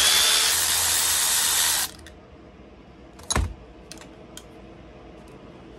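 Cordless drill running for about two seconds with a steady motor whine, backing out a fastener on an outboard's fuel pump. It stops abruptly. About a second and a half later comes a single sharp knock, followed by a few small clicks of metal parts being handled.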